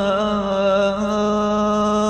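A man's voice chanting a Comorian wandjilu sahur chant, holding one long sung note with small steps in pitch, drawn out at the end of a line.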